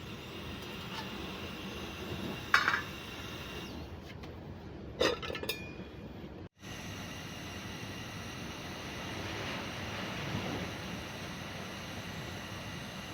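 Two short, sharp clinks of hard objects knocking together, the first about two and a half seconds in and the second about five seconds in, over a steady rushing background noise. The sound briefly drops out in the middle.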